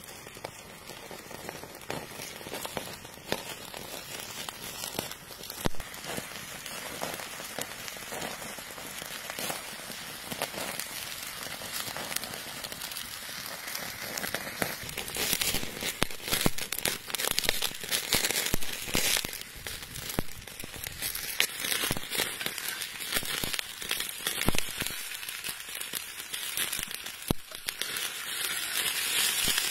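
Open wood fire crackling under a stone slab, with meat sizzling and popping on the hot stone. The sizzle grows louder toward the end.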